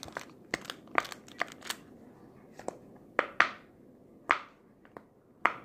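Pop-it fidget toys being handled: a string of about a dozen sharp plastic clicks and pops at uneven intervals, with a gap of about a second in the middle.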